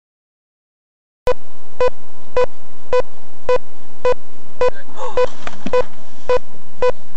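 Electronic warning beeper giving a steady run of short, identical beeps, about two a second. It starts suddenly after a second of silence.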